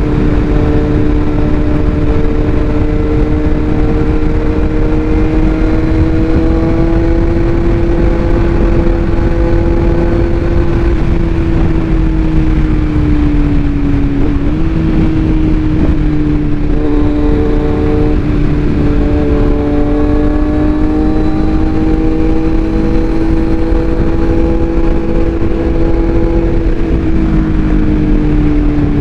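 Kawasaki Z900 inline-four engine with the under-engine exhaust chamber ('bread box') removed, running at steady revs, its pitch drifting slowly up and down, with a brief drop and quick jump in pitch about halfway through.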